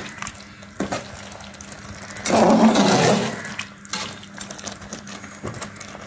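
A metal spoon stirring thick chicken curry gravy in a pressure cooker pot, with wet sloshing and squelching and light clicks of the spoon against the pot. The stirring gets louder for about a second near the middle.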